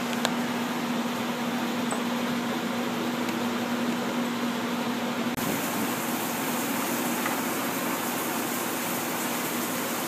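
Steady rushing background noise with a low hum. The hum stops abruptly about five seconds in, where the rushing turns brighter. A small click comes right at the start.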